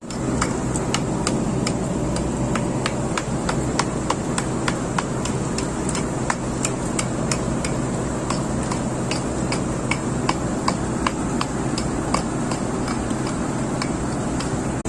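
A steady motor hum with a thin high whine, overlaid by sharp, irregular knocks or taps, about two or three a second.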